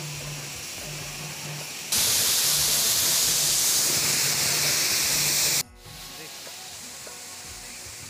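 Steady rushing hiss of a small waterfall's falling water; it turns much louder and brighter about two seconds in, then drops suddenly to a quieter rush a little past halfway, with faint voices in the background.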